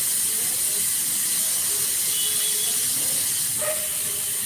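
Pressure cooker whistle venting steam: a steady, loud hiss.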